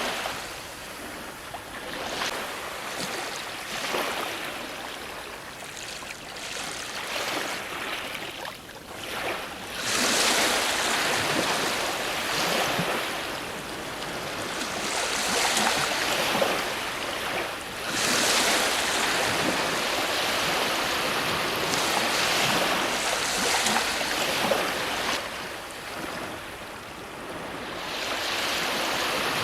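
Ocean waves breaking on a shore, a continuous wash of surf that swells and ebbs as each wave comes in, with the strongest surges about ten seconds and eighteen seconds in.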